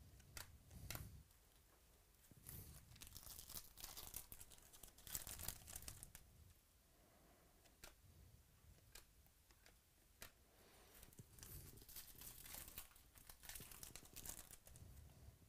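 Faint crinkling and tearing of a foil trading-card pack wrapper in two spells, about two seconds in and again about eleven seconds in. Light clicks of stiff chrome cards being handled fall in between.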